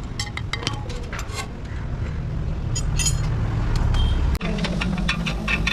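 Metal tools clinking and tapping on motorcycle parts in a series of short sharp clicks, over a steady low engine-like rumble; the sound cuts off abruptly about four and a half seconds in.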